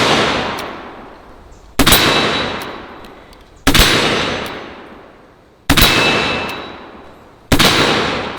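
Pietta 1851 Navy cap-and-ball revolver with a 7.5-inch barrel, fired shot after shot. There are five loud shots about two seconds apart, each followed by a long fading echo.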